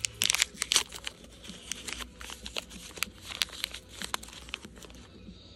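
Crinkling and tearing of a small Foodie Mini Brands wrapper packet being pulled open by hand: a dense run of sharp crackles in the first second, then scattered crinkles that stop about five seconds in.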